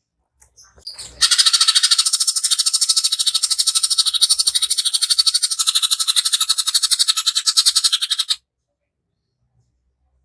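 Greater green leafbird (cucak ijo) in full song, giving its harsh rapid-fire 'tembakan kasar' burst: a fast, even rattle of repeated high notes. It starts about a second in and cuts off suddenly after about seven seconds.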